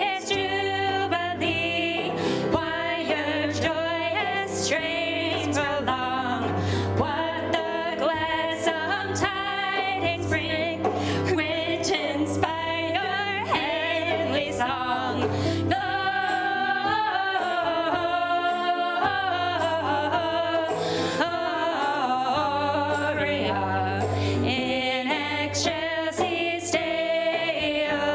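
Two women singing a Christmas carol, accompanied by grand piano and a cajón struck in repeated hits.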